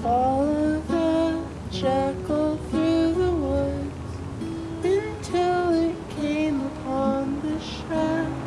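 A man singing a folk song in short, fairly high phrases, accompanied by his own acoustic guitar.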